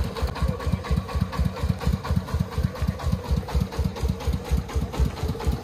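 Công nông farm truck's diesel engine running with a fast, even chugging beat.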